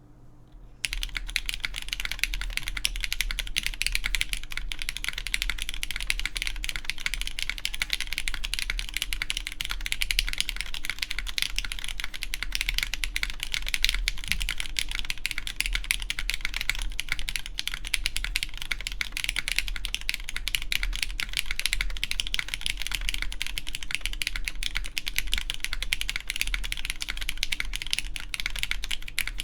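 Continuous fast typing on a RAE Adamas mechanical keyboard fitted with lubed Cherry MX Black Clear Top linear switches, GMK Copper keycaps and a full aluminium plate: a dense, even stream of key clacks that starts about a second in.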